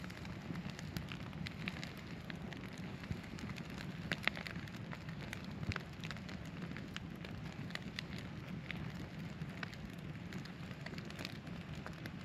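Campfire crackling: wood fire burning with irregular snaps and pops over a low steady rumble, a couple of louder pops about four and six seconds in.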